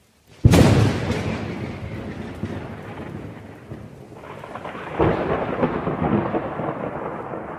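Two claps of thunder, each a sudden crack that rolls off into a long, fading rumble. The first, louder one comes about half a second in, the second about five seconds in.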